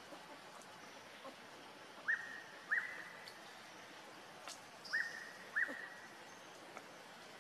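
Four short whistle-like animal calls in two pairs, each jumping up sharply to one high pitch and holding it briefly, over a steady outdoor hiss.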